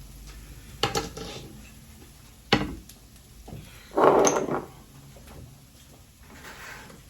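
Kitchen items being handled: a few sharp knocks and clinks, with a louder rustling clatter about four seconds in and a fainter one near the end.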